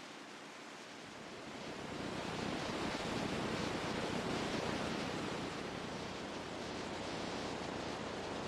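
Ocean surf: a wave builds about two seconds in, peaks, and slowly washes back down.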